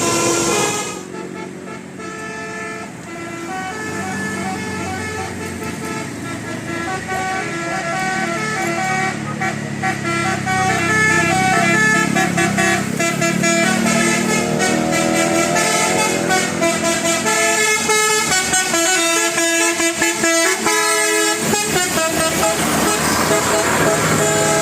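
Indonesian 'telolet' bus horn: a set of multi-tone air horns playing a tune, several notes sounding at once and changing pitch in steps. Around the middle some notes slide upward, and toward the end the tones stutter in quick on-off pulses.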